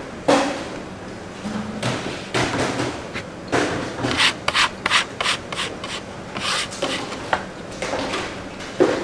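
Youtiao dough being worked by hand on a wooden board: a run of irregular rubbing and scraping strokes that come fastest midway.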